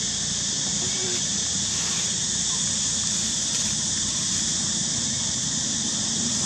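Steady, high-pitched drone of insects, with a low rumble underneath.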